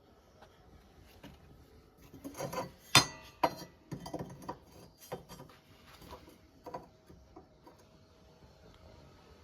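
A run of clinks and knocks from hard objects being handled, the loudest about three seconds in with a brief ring, then scattered lighter taps.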